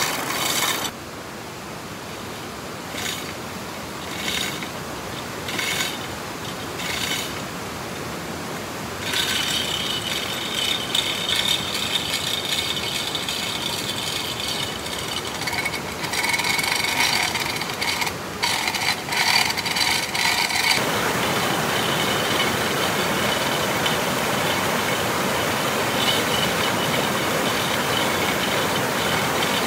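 Hand tools working wood: repeated strokes and scraping on timber that change in character from segment to segment. About two-thirds in, they give way to a steady rushing noise.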